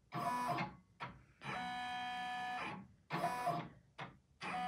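Brother PR1055X embroidery machine tracing the design outline: the frame drive motors move the hoop around in several short runs, each a steady whine of up to about a second, with brief pauses between the moves.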